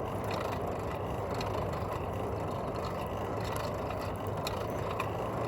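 Wood-fired forge burning with a steady rushing noise, its fuel sticks giving off faint, scattered crackles.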